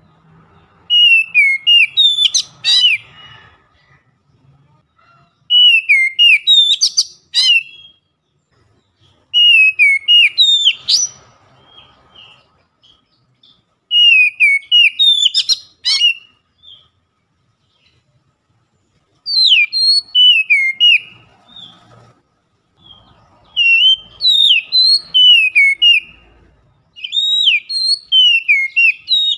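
Oriental magpie-robin (kacer) singing loud, clear whistled phrases. Each phrase lasts about two seconds, falls and rises in pitch, and ends in quick upward sweeps. The phrases repeat about every four seconds.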